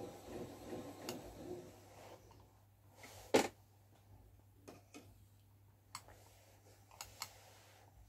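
Wooden spinning wheel in use while yarn is spun: a soft, rhythmic whirr for the first two seconds, then a series of light clicks and knocks, the loudest about three seconds in.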